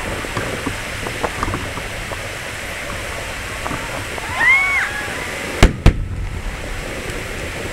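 Fireworks shells bursting: two sharp bangs about a third of a second apart near the end, over a steady background din with scattered small crackles. Just before the bangs a short high tone rises and falls in pitch.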